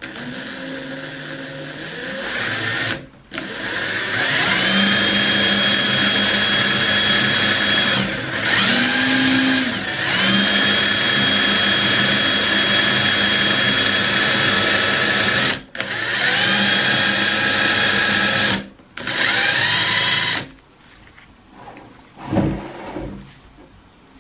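Two Makita 18V brushless cordless impact drivers, a TD170D and a TD171D, running together at full speed with no load on their long bits: a steady high-pitched motor whine. It stops briefly three times and rises in pitch each time the motors spin back up, then cuts off about 20 seconds in, leaving faint handling knocks.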